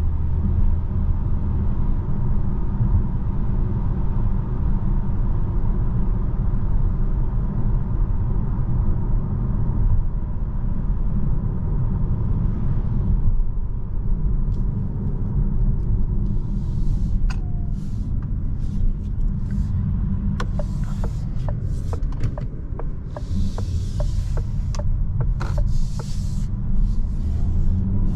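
Interior road noise of a DS 4 E-Tense 225 hybrid at road speed: a steady low rumble of tyres and drivetrain. In the second half come scattered light clicks and short bursts of hiss.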